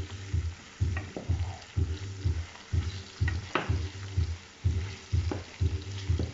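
Diced potatoes sizzling as they fry in hot oil in a pot, with a few sharp knocks of a spoon stirring them. Background music with a steady bass beat of about two beats a second plays under it.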